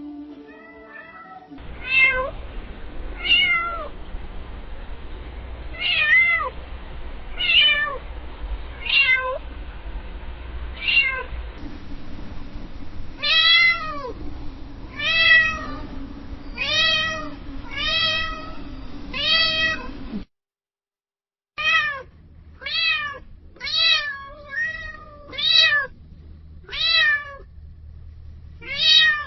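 Domestic cats meowing over and over in a string of separate recordings. Each meow is short and rises then falls in pitch, coming about once a second or a little slower. A low rumble sits under the earlier meows, and there is a brief silence between two recordings about two-thirds of the way in.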